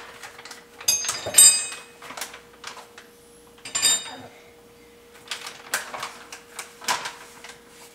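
A metal spoon clinking against a blender jar, with ringing taps about a second in and again about four seconds in. Near the end comes the crinkle of a plastic powder pouch being handled. A faint steady hum runs underneath.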